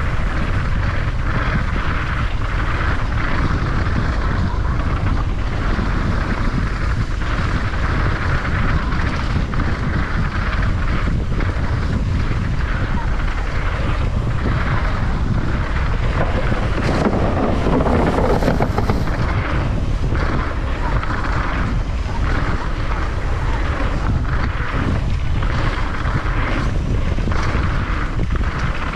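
Wind rushing over the microphone with the rumble of a downhill mountain bike riding a rough trail, broken by many short knocks and rattles from the bike.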